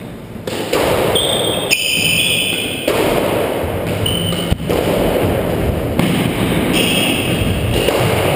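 Squash rally: the rubber ball cracking off racquets and smacking the walls and floor in scattered sharp knocks, the loudest a crack about four and a half seconds in, with court shoes squeaking on the wooden floor and players' feet scuffling.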